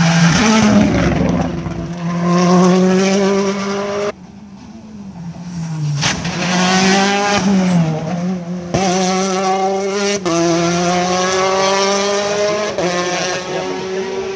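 Rally cars driven hard along a tarmac stage. The engines climb in pitch through each gear, with quick drops at the shifts. The sound breaks off abruptly about four seconds in and then builds again as a car accelerates past.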